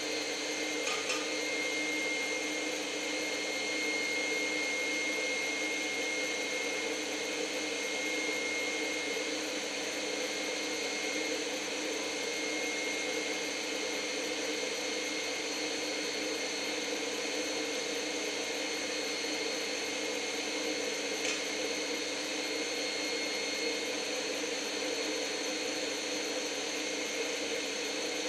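Stand mixer motor running steadily with a constant whine, its whisk beating egg yolks for hollandaise as very hot browned butter is ladled in.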